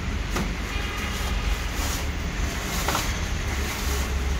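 Steady low rumble of background noise with a few brief knocks and rustles as the large speaker box is handled during unboxing.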